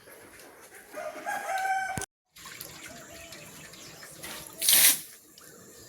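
Rooster crowing once, about a second in, cut off suddenly; a short, loud, noisy burst follows near the end.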